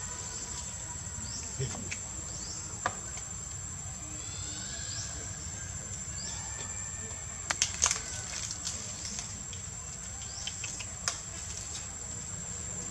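Insects droning steadily at one high pitch, with faint short chirps in the middle. A few sharp clicks, the loudest a quick cluster about eight seconds in.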